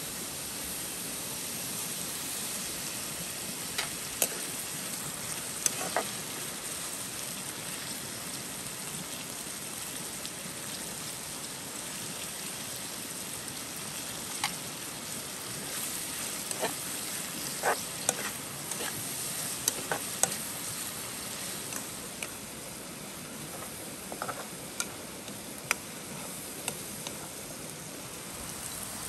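Sliced onions frying in oil in a pan over a wood fire: a steady sizzle, with scattered sharp clicks and taps.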